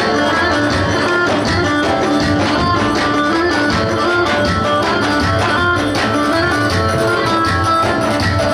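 Turkish halay dance music played live: davul drums beating a steady rhythm under a plucked-string melody.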